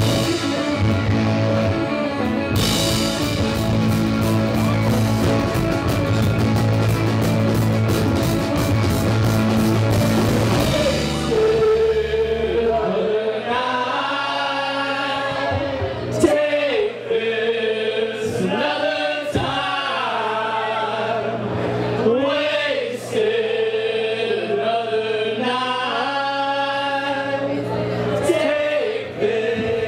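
Live rock band with electric guitars and drum kit playing loud, with a steady wash of cymbals. About twelve seconds in, the drums and bass drop out, and voices sing over held chords with only occasional cymbal hits.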